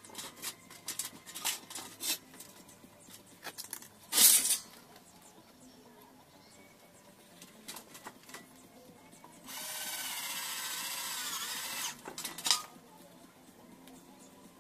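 Cordless drill running for about two and a half seconds as it bites into a metal angle profile, its pitch sagging just before it stops. Before it come light clicks and knocks of metal parts being handled, with one loud clank about four seconds in.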